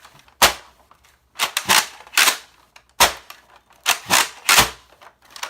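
Sharp plastic clacks from a Nerf Mega shotgun blaster being worked, about nine in all, several coming in quick pairs like a pump being pulled back and pushed forward.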